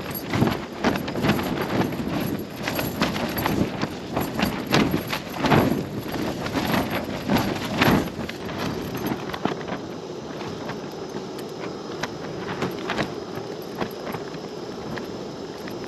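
Hilleberg Jannu tent fabric flapping and slapping in strong gusting wind, a dense run of irregular snaps for about the first half that eases into a steadier rush of wind with only occasional slaps.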